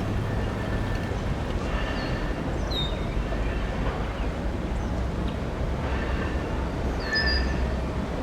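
Steady low rumble of a diesel locomotive, with short high bird chirps several times over it.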